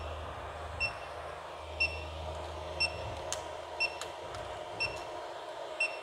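3D printer's buzzer giving short high beeps about once a second: the Marlin filament-change alert, sounding while the paused printer waits for filament to be reinserted after a runout. A low steady hum from the printer runs underneath, with two faint clicks about halfway through.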